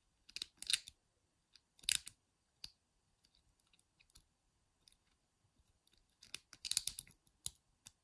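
Thin wire lock pick scraping and clicking against the levers inside a small Squire 220 lever padlock, held under tension with a homemade tension tool. Short scratchy clicks come about half a second in and near two seconds, then a denser run of scrapes near the end.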